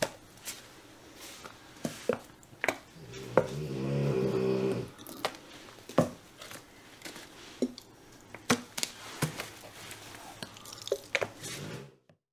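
Plastic squeeze bottles of acrylic paint being squirted onto a canvas: wet squelches and clicks, with one longer, pitched sputtering squeeze about three to five seconds in. The sound cuts off just before the end.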